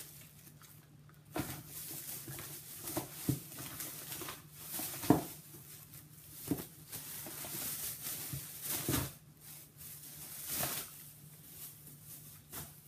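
Plastic shopping bag and packaging rustling and crinkling as purchases are handled, with scattered light clicks and knocks, over a faint steady hum.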